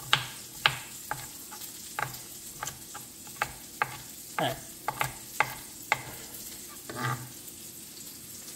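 Santoku knife mincing garlic on a cutting board: irregular sharp knocks, thinning out near the end, over the steady sizzle of onions and carrots frying in a pan, which are starting to burn.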